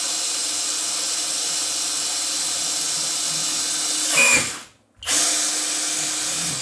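Hoto brushless cordless drill running steadily as it bores into a PC case's plastic front panel, with a fixed high motor whine. A little after four seconds in it briefly gets louder, stops for about half a second, then starts again and runs on.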